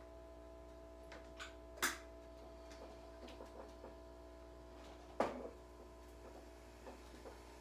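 A steady electrical hum, with two sharp knocks about two and five seconds in and a few light clicks between them as someone shifts about close by.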